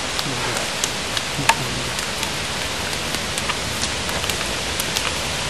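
A steady hiss, with a few sharp, irregular slaps of forearms and hands meeting in a Wing Chun contact drill.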